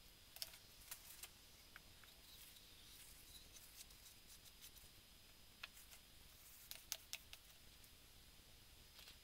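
Near silence with scattered faint, short clicks and taps: small handling sounds of a paintbrush, paper towel and a small painted wooden piece being worked on a workbench.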